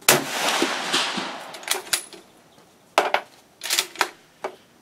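A Springfield 1898 Krag rifle fires a .30-40 Krag round: one sharp shot at the start, ringing out and dying away over about a second and a half. It is followed by a run of short metallic clicks and clacks as the bolt is worked, the spent case coming out and a fresh round going in.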